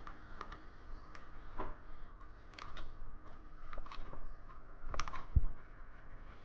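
Irregular light clicks and ticks of electrical wire and hand tools being handled while making up a switch box, with one dull thump a little over five seconds in.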